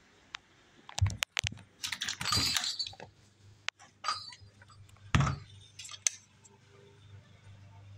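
A string of clicks and rattles, with a knock about five seconds in, then a low steady hum as the three-blade metal ceiling fan's motor is switched on and starts up.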